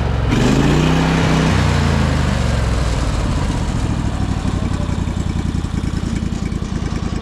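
Engine running down from higher revs to a steady idle, its pitch falling over the first couple of seconds and then settling into an even pulsing run.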